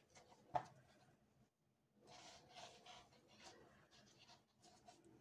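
Faint rustling and scratching of jute twine being worked with a crochet hook over jute rope, with a single soft click about half a second in.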